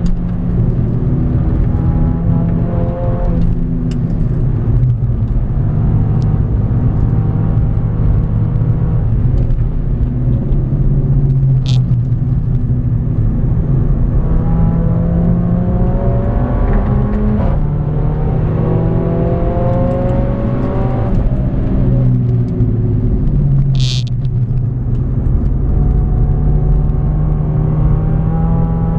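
Mercedes-AMG A45's turbocharged 2.0-litre four-cylinder engine driven hard on track, heard from inside the cabin: the engine note climbs through the revs and drops back sharply at each upshift, several times over. Two brief high-pitched chirps cut through, about twelve seconds in and again near twenty-four seconds.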